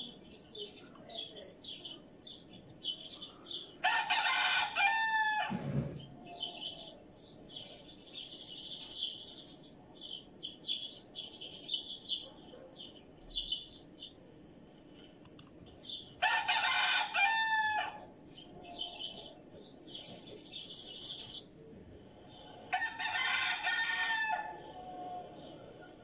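A rooster crows three times, about 4, 16 and 23 seconds in, each crow lasting a second and a half to two seconds. Between the crows, chicks keep up a string of short high peeps, and hens cluck.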